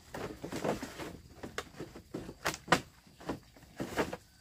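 A series of irregular knocks and clacks of hard objects, the loudest about two-thirds of the way through.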